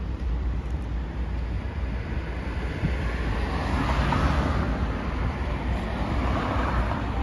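City street traffic: vehicles passing, with a rushing tyre noise that swells to a peak about four seconds in and again near the end, over a steady low rumble.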